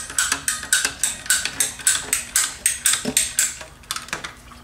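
Ratcheting PVC pipe cutters clicking rapidly, about five clicks a second, as they are squeezed through a rubber radiator hose; the clicking stops about three and a half seconds in.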